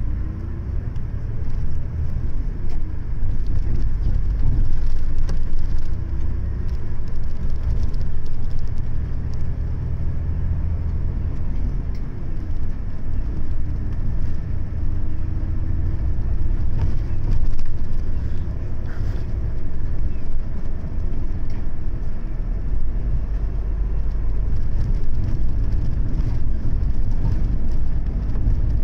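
Highway coach's diesel engine and drivetrain, heard inside the passenger cabin as a steady low rumble while the bus drives along, with a faint rising whine a few times as it gathers speed.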